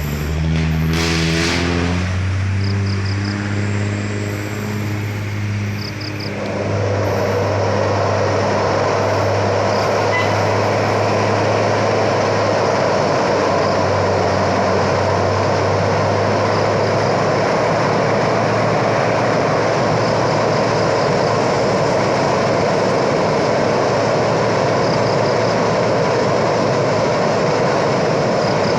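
Motor vehicle engine running steadily under road noise. In the first two seconds the engine note falls in pitch, and from about six seconds a louder steady rushing noise joins in.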